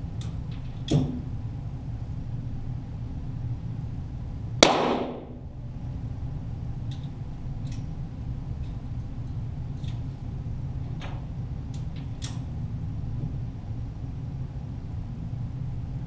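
.22 Walther GSP target pistol shots in an indoor range, heard from down by the target: one loud crack about four and a half seconds in with a reverberating tail, a smaller one about a second in, another near eleven seconds, and a few faint sharp clicks between them. A steady low hum runs underneath.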